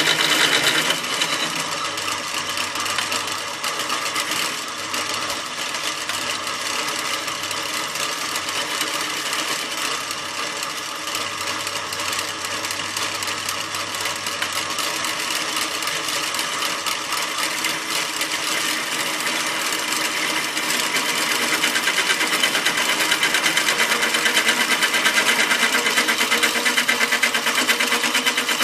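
Electric drill press running with its bit bearing down on a steel piece: a steady mechanical whir with a fast, even rattle, growing louder about three-quarters of the way through.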